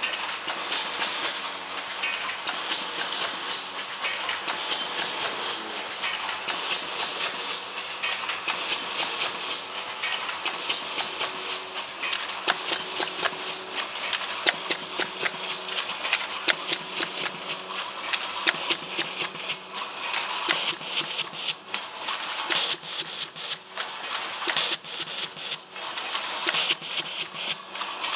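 Romaco Noack DPN 921 blister packaging machine running: a steady, dense mechanical clatter of rapid clicks over a hiss. The clacks grow sharper and more separate toward the end.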